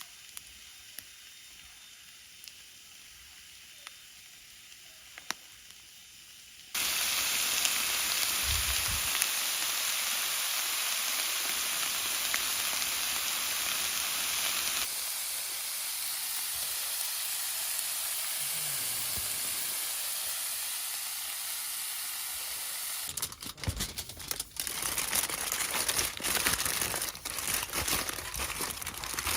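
Steady sizzling hiss of food frying that starts suddenly about a quarter of the way in, followed near the end by irregular crackling and crinkling.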